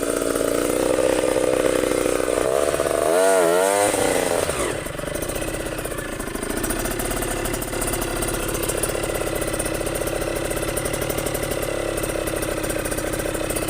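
Trail motorcycle engine running, blipped up and back down about three seconds in, then running more steadily at lower revs.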